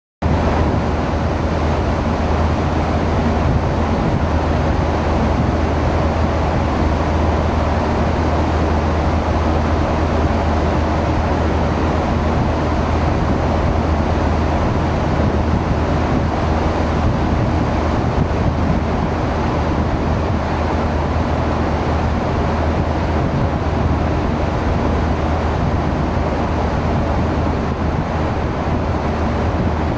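Steady low drone of tugboat engines, with a constant rushing noise over it.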